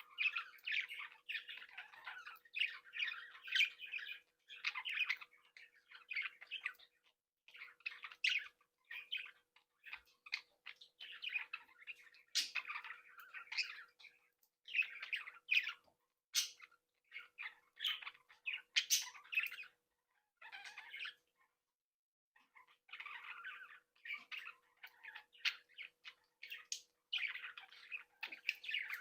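Young budgerigars (budgies) chattering continuously, a warbling babble of chirps and sharp squawks, broken by a brief pause about three-quarters of the way through.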